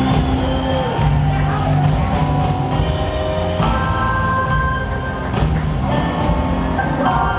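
Live rock band playing in an arena, heard from high in the stands: drums keep a steady beat under keyboards and guitar.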